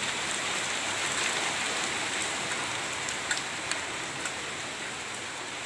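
Rain falling steadily on a street: an even hiss with a few sharp drips landing close by.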